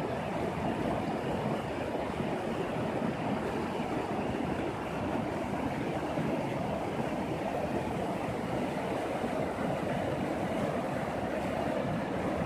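Shallow, rocky mountain river rushing over stones and rapids: a steady, even rush of water.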